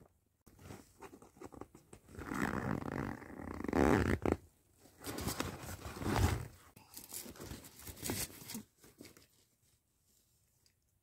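A duffel bag's zipper being pulled open and the bag's fabric rustling as it is rummaged through, in two long noisy stretches, then a few small clicks as the noise dies away near the end.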